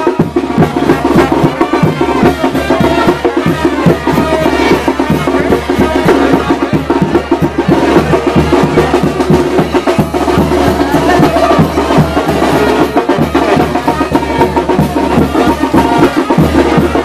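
Brass band playing chinelo dance music, with a steady, driving drum beat under the horns.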